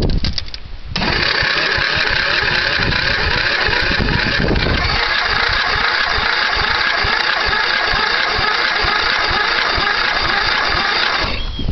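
The cold 11 hp Yard Boss riding mower engine being cranked by its starter. It starts about a second in, turns over evenly for about ten seconds without catching, and stops shortly before the end.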